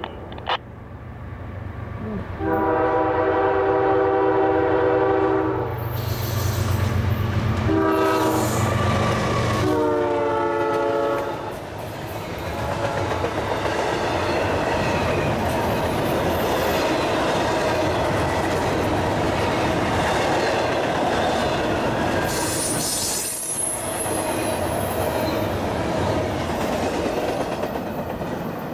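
Diesel freight locomotive's horn: one long blast, a short blast, then a longer blast whose pitch drops as the locomotive goes by. Double-stack container cars then roll past with steady wheel clatter on the rails and a brief high wheel squeal about three-quarters of the way through.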